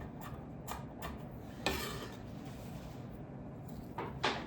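Knife cutting onion on a cutting board: a few light taps and rubs, a sharper knock about a second and a half in, and two more knocks near the end.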